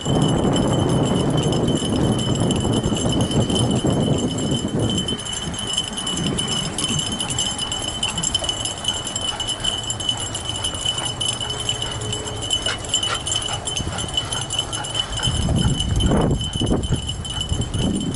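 Fat bike rolling along a dirt trail, pulled by dogs running ahead: steady rolling and rumbling noise with a thin steady whine throughout, heaviest for the first few seconds and again near the end.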